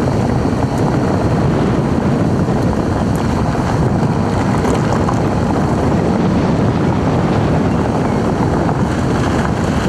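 Steady road noise from a moving car, picked up by a camera mounted outside, low on the car's front: tyres rolling on the road surface mixed with wind on the microphone.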